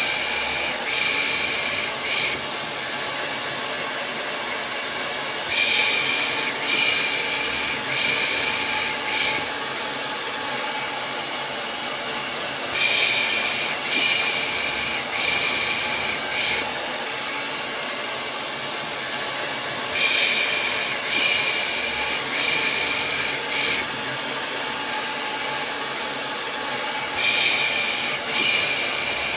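Hair dryer running steadily, with a rhythmic 'pış pış' shushing laid over it: runs of about four short shushes, repeating every seven seconds or so.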